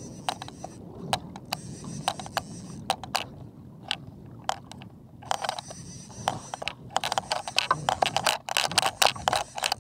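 Fishing reel clicking as line is cranked in against a hooked fish: scattered clicks at first, then a dense run of rapid clicks from about halfway through.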